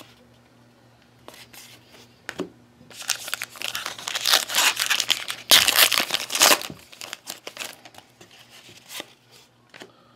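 A trading card pack's wrapper being torn open and crinkled: a dense crackling that starts about three seconds in, lasts about four seconds, and is loudest near the middle. A few soft clicks of cards being handled come before and after it.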